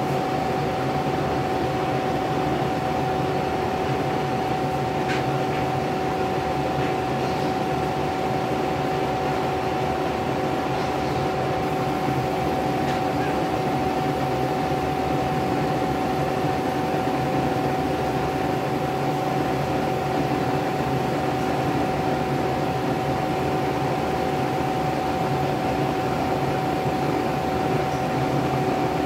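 Laser engraving machine running: a steady whirring hum from its fans, with a constant whine.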